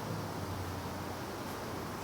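Steady background hiss with a low hum, and a faint brief rustle about one and a half seconds in.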